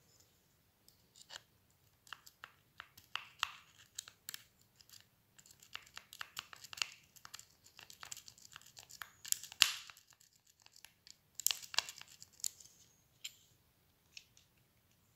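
A lock pick stroked back and forth over the wafers of a metal cupboard-handle wafer lock, with a tension tool in the keyway: irregular runs of small metallic scratching clicks, loudest about ten and twelve seconds in. On this attempt the wafers do not all set and the lock stays shut.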